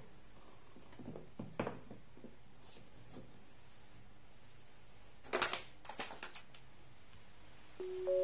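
Soft knocks and clinks of glass storage jars with bamboo lids being closed and set down on a wooden tray, with a louder cluster of clinks about five seconds in. Light chiming mallet music starts near the end.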